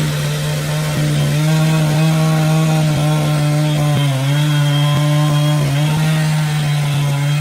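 Engine-driven saw running steadily while cutting wood, its pitch dipping briefly a couple of times as the blade takes load.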